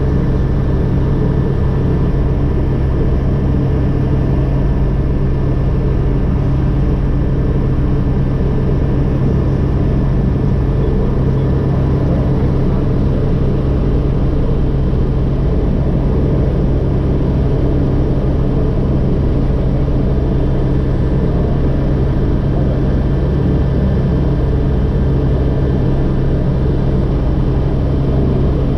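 Agusta AW119 helicopter's turboshaft engine and rotors running steadily at flight rotor speed, heard from inside the cockpit. A constant low drone carries faint steady whining tones above it.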